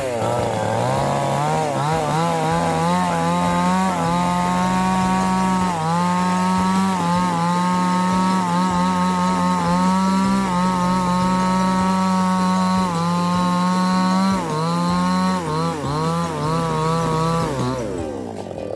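Two-stroke chainsaw running at full throttle while cutting wood, its pitch dipping briefly under load a few times, then winding down near the end.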